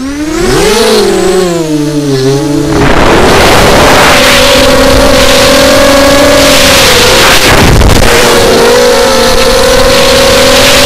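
ZMR250 mini quadcopter's brushless motors and propellers whining, heard through its onboard camera with heavy rushing air noise. The pitch climbs and wobbles as the throttle comes up in the first few seconds, then holds a steady whine, dipping briefly about seven seconds in before steadying again.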